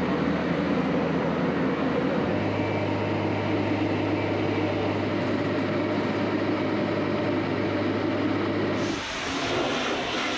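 Boat travel lift's engine running with a steady low drone as it hoists a catamaran out of the water in slings. The drone steps up slightly in pitch about two seconds in. Near the end it gives way to the hiss of a pressure washer spraying the hull.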